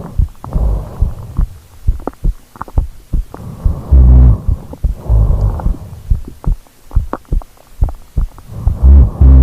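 A sleeping person's heartbeat picked up close to the microphone as a steady run of short, low thuds. A louder, longer low snore comes about four seconds in and again near the end.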